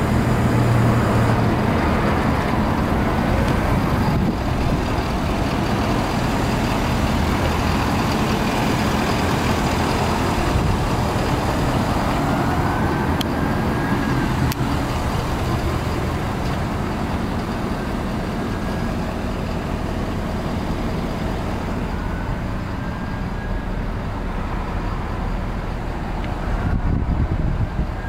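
A 6.7-litre Power Stroke V8 turbo-diesel idling steadily, a constant low drone.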